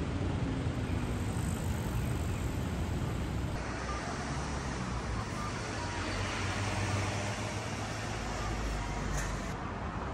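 City road traffic: cars and other vehicles passing, a continuous hum of engines and tyres, with a deeper rumble swelling about two-thirds of the way in.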